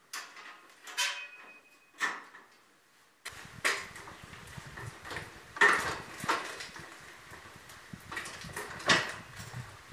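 Hand masonry work: a metal trowel clinking, knocking and scraping against mortar and brick. The sounds come as separate knocks, and one near the start rings briefly. From about three seconds in, a busier stretch of knocks and scraping follows.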